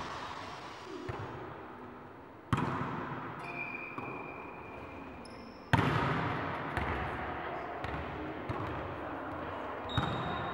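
Volleyball being struck during passing practice, the hits ringing out in the echo of a large sports hall. Two hits stand out, about two and a half seconds in and again near six seconds, with softer knocks between.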